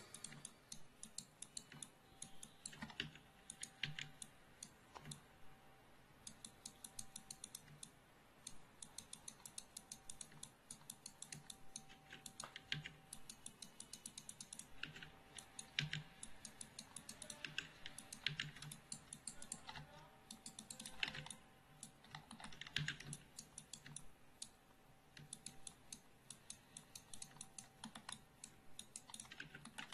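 Faint, irregular clicking of a computer keyboard and mouse, in scattered single clicks and quick runs.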